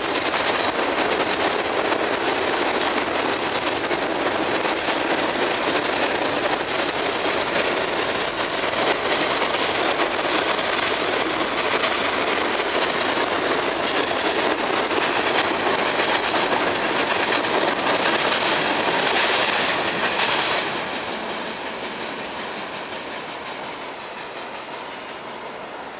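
Freight train cars rolling past: a steady, loud rolling noise of wheels on rail with fine clacking. About twenty seconds in it drops off sharply and then fades away as the last of the train goes by.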